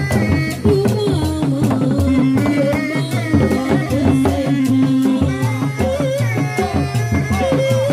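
Sundanese reak music: dogdog drums, large single-headed drums struck by hand in a steady rhythm, with a held, wavering melody line over them.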